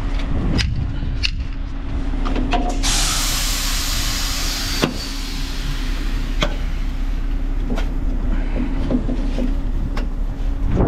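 Heavy truck idling with a steady low hum, among scattered knocks and clicks. About three seconds in, a hiss of released air lasts about two seconds.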